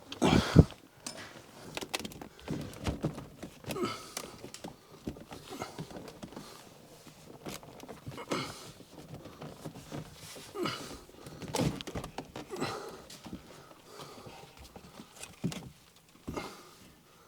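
Hands and tools at work on car interior trim: irregular clicks, knocks and rustling as trim pieces and fittings are handled and pried, with a loud thunk about half a second in.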